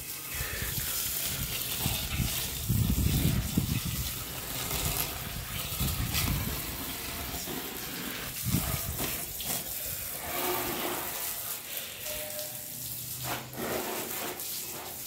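Water spraying from a hose onto a motorcycle and splashing on a concrete floor. The level is uneven and loudest about three seconds in.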